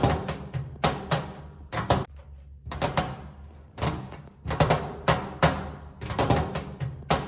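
Fingernails tapping on a metal tray in quick runs of sharp taps with short pauses between, each tap leaving a brief ring.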